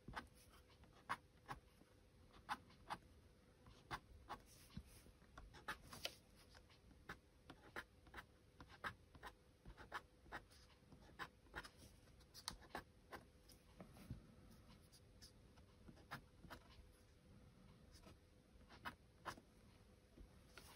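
Black fine-liner pen drawing quick little tick marks on card: faint, irregular light taps and scratches of the nib, about two a second.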